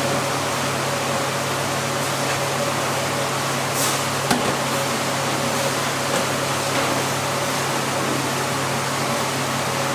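Steady hum of commercial kitchen ventilation fans. A short splash of liquid is poured into a stainless steel bowl of chopped green onions just before four seconds in, with a single sharp knock right after.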